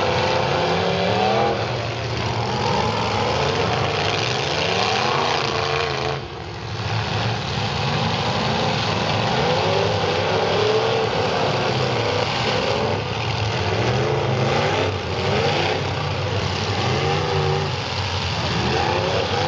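Several demolition derby cars' engines revving hard at once, their pitches climbing and falling over one another as the cars push and ram each other on a dirt track.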